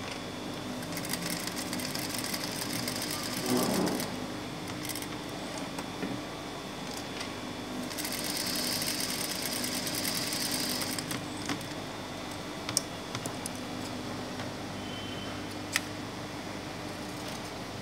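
Industrial lockstitch sewing machine stitching in two runs of about three seconds each, starting about one second in and again about eight seconds in, over a steady hum. There is a brief thump about three and a half seconds in, and a few sharp clicks near the end as the fabric is handled.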